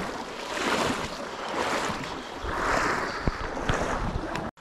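Rushing water of a shallow creek riffle, with swelling surges of noise and a few soft knocks late on; it cuts off suddenly near the end.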